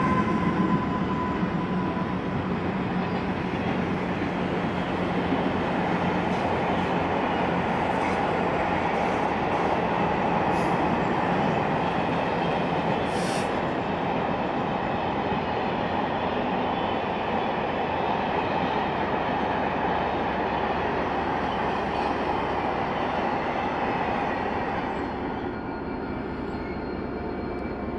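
Freightliner Class 66 diesel locomotive, with its two-stroke V12 engine, hauling a container freight train past at close range: a steady rumble of engine and wagon wheels on the rails, easing slightly near the end.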